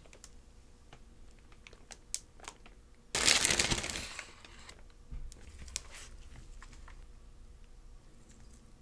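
Packaging being handled during an unboxing: small taps and clicks, then a loud crinkle about three seconds in that lasts about a second and fades, followed by a few softer handling sounds.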